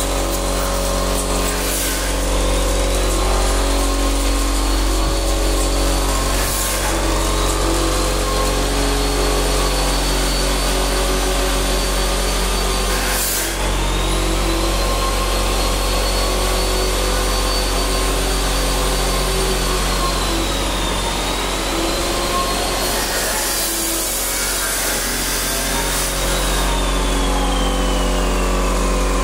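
Air compressor running steadily for spray painting, a low machine hum with a faint high whine that drifts slowly in pitch. A few short bursts of hiss rise above it now and then.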